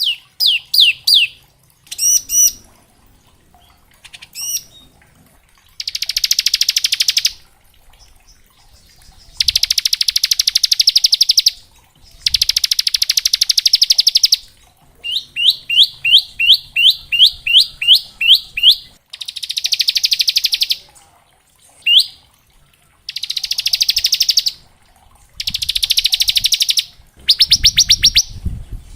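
Bar-winged prinia (ciblek) singing in the 'ngebren' style: rapid, buzzing trills of a second or two, alternating with runs of sharp, separate downslurred notes at about two a second. A low rumble joins in near the end.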